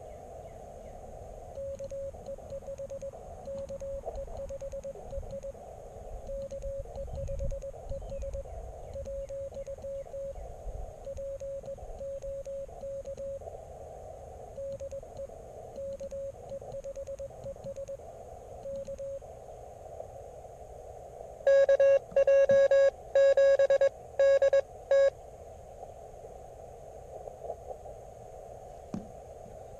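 Morse code (CW) tones from an Elecraft KX3 transceiver: a station's dits and dahs at one steady pitch, heard inside the narrow CW filter's band of hiss. About three-quarters of the way through comes a short, much louder run of keying at the same pitch, the operator's own sidetone as he sends.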